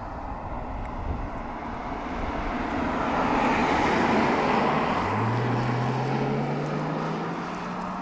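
Mercedes-Benz CLS car driving past: engine and tyre noise swell to a peak about four seconds in as it goes by. Then a steady engine note, rising slowly in pitch, carries on as it pulls away.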